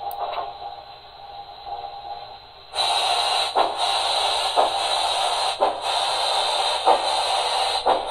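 Sound decoder of an HO-scale Santa Fe 4-8-4 steam locomotive model playing through its small onboard speaker: quiet at first, then about three seconds in a loud steady steam hiss sets in, with slow regular chuffs about once a second.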